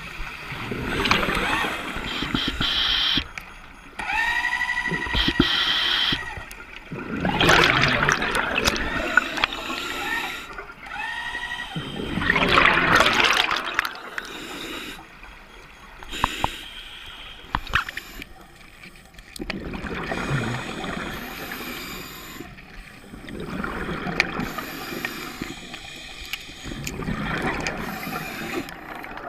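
A scuba diver breathing underwater through a regulator: rushing exhaled bubbles alternate with inhalation hiss, repeating every few seconds. Twice, a short whistling tone comes with a breath.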